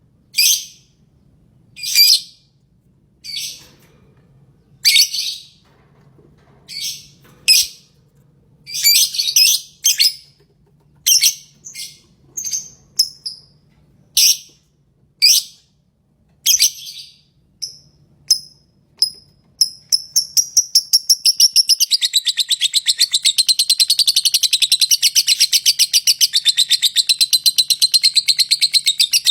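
Lovebird chirping: sharp, loud single chirps about one a second, then from about two-thirds in a long, fast run of rapid chattering notes.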